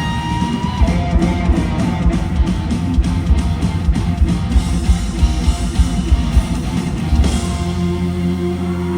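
Live rock band playing hard rock, with distorted electric guitar over fast, driving drums. About seven seconds in, a final chord is struck and left ringing.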